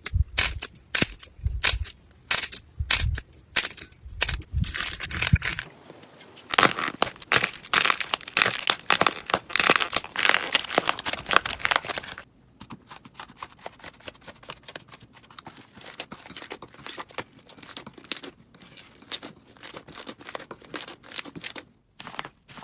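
Slime being squeezed and poked by hand: a dense run of crackling, popping clicks, loud at first and turning much softer about halfway through.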